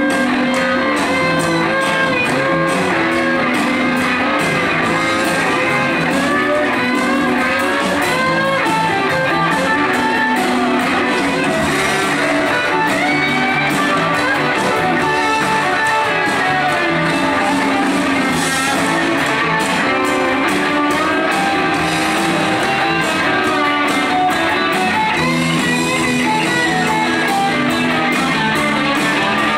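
Live rock band playing an instrumental passage: two electric guitars, one carrying a lead line with string bends, over drums and bass.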